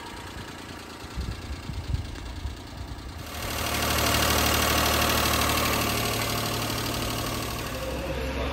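1993 Daihatsu Hijet kei truck's 660 cc three-cylinder engine idling steadily. It gets much louder about three seconds in, heard up close at the engine bay.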